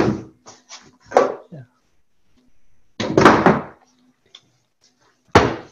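Heavy wooden clunks and knocks as a low wooden sawhorse and a shoji screen frame are picked up, knocked together and set down: one about a second in, a longer clatter about three seconds in, and another near the end, with light knocks between.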